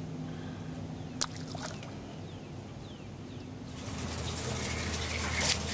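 Quiet outdoor ambience by a pond: a few faint, short falling bird chirps over a steady low hum, with a single sharp click about a second in. A soft hiss rises about four seconds in.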